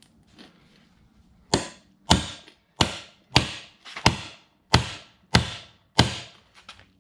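Hammer blows while a new tire is worked onto an ATV wheel rim: about eight sharp strikes, evenly spaced about two-thirds of a second apart, starting about a second and a half in.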